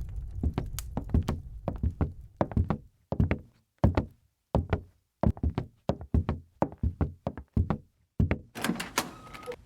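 Footsteps on a wooden floor, a steady walking pace of about two dull knocks a second.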